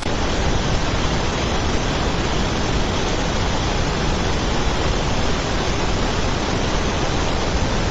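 Steady, even rushing noise with no pitch or rhythm, like rushing water or wind.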